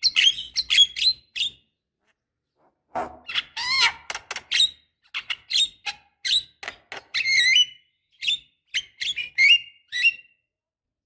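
Javan myna (jalak kebo) singing: a quick run of short, sharp chirps, a pause of about a second and a half, then a varied chatter of whistles, squeaks and rising and falling notes.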